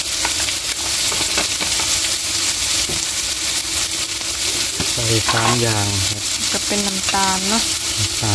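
Freshwater mussels with chili and garlic sizzling in hot oil in a metal wok, a steady hiss, as a metal spoon stirs them and scrapes along the pan.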